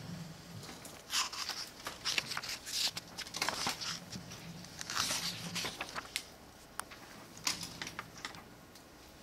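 Paper textbook pages being turned: a run of rustles and crinkles as the pages are leafed through, then a few soft single clicks near the end.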